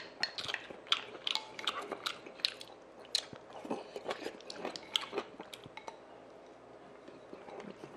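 Close-miked mouth sounds of a person eating spoonfuls of sundae gukbap (rice in pork and blood-sausage soup): chewing with many short wet smacks and clicks, growing quieter for the last couple of seconds.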